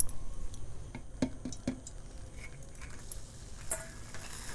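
A few light clicks and taps, a cluster about a second in and another near the end, as freshly fried jalebis are pushed down into hot sugar syrup in a steel bowl with a thin stick.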